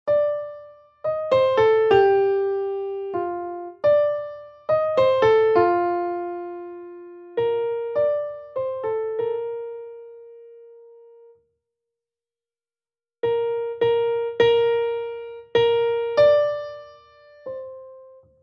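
Solo piano accompaniment: a phrase of mostly single notes in the middle register, ending on a held note that dies away. After a pause of about two seconds, a second phrase of repeated notes follows.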